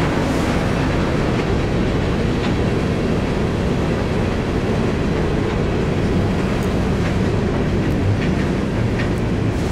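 Empty covered hopper cars of a freight train rolling past: a steady rumble of steel wheels on rail, with a few faint clicks scattered through it.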